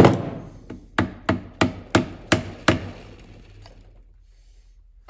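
Hammer blows on the bearing retainer of an Allis-Chalmers B transmission case, knocking it loose from the case: one hard strike, then six quick blows about three a second.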